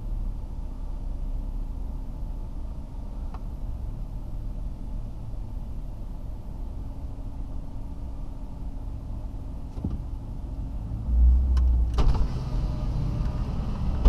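Vehicle engine idling steadily, heard from inside the cab. About eleven seconds in, a louder low rumble comes as it pulls forward. Then a click, and the outside noise grows louder as the power window goes down.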